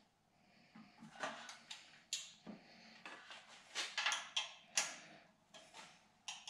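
Irregular metallic clicks and short scrapes from a small hand driver working the mounting screws of an LED light bar in its steel housing, with the bar and bracket knocking lightly as they are handled.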